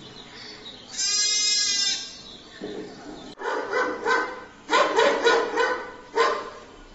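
A lamb bleats once, a call of about a second. Then, about halfway through, a dog starts barking in a quick run of repeated barks.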